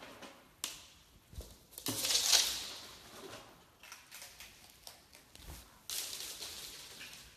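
Fennec foxes scampering on a hard, smooth floor: claws skitter and scrabble in quick bursts, loudest about two seconds in and again around six seconds.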